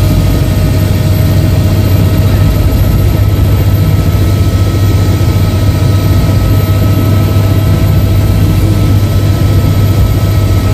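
Helicopter running on the ground with its main rotor turning, heard from inside the cabin: a loud, steady deep drone with a steady whine above it.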